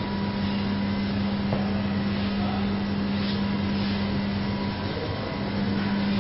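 Steady machine hum: a constant low droning tone over an even hiss, unchanging throughout.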